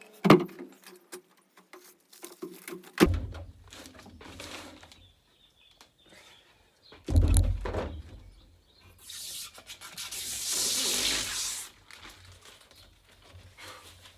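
Handling noises from work on the roof: a few sharp knocks and bumps, then a rubbing, scraping noise lasting about two and a half seconds past the middle.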